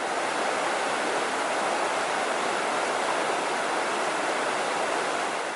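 River water rushing steadily over rocks, a loud, even rush that cuts off abruptly at the end.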